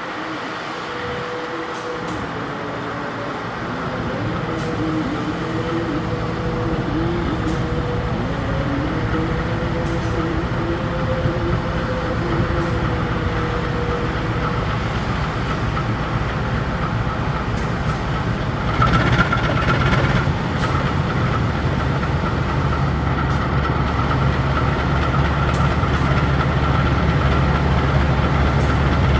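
CC 201 diesel-electric locomotive hauling a passenger train slowly toward the listener. Its diesel engine runs with a wavering pitch, and the low rumble grows louder as it nears. About two-thirds of the way through, a steady high whine sets in and holds.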